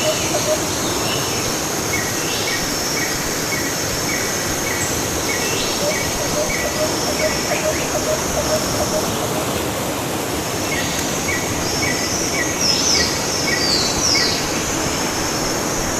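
Waterfall's steady rush of falling water, with birds singing over it: repeated short chirps and quick falling whistles.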